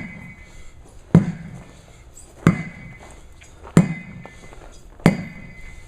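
Sledgehammer striking a tire in a steady rhythm: four heavy blows about 1.3 seconds apart, each a thud with a brief ringing tone after it.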